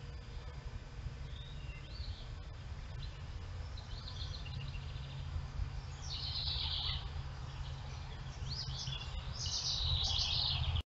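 Wild birds singing: several short chirping song phrases, the loudest from about six seconds in and again near the end, over a steady low rumble.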